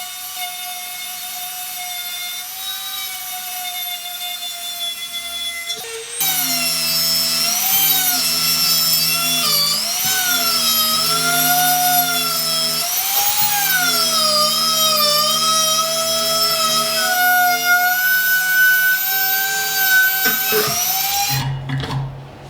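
A high-pitched electric power tool whine, such as a drill or grinder used for rust removal. It gets louder about six seconds in, and its pitch sags and recovers as the tool is pressed into the work. It cuts off shortly before the end.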